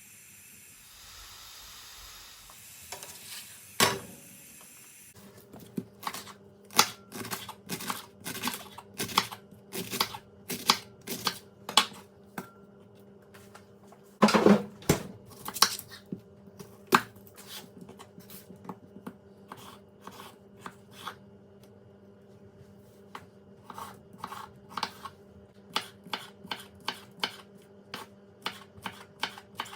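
Irregular clinks, taps and knocks of dishes and utensils being handled, with a thicker cluster about halfway through. A steady low hum runs underneath from about five seconds in.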